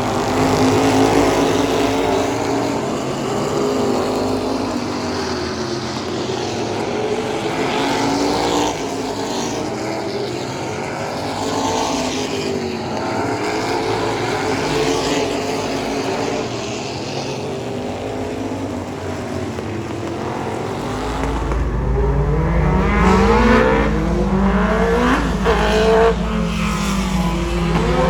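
Several race car engines running laps in practice, their notes rising and falling as they accelerate and lift. From about two-thirds of the way in a car comes closer with a deeper, louder rumble and a sweeping pitch.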